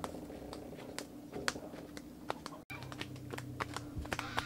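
Footsteps on dry ground and brush: scattered light clicks and crackles of feet on leaves and twigs, over a faint steady hum, broken by a brief gap a little over halfway through.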